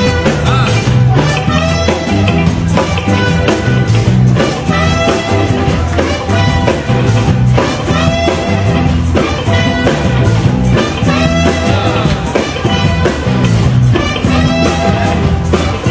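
A band playing Bubu music, the Temne style from Sierra Leone, with a repeating bass line under busy melodic parts.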